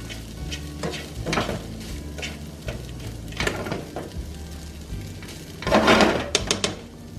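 Instant noodles sizzling as they pan-fry, with a utensil scraping and tapping against the pan every second or so as they are tossed; the loudest scraping comes about six seconds in.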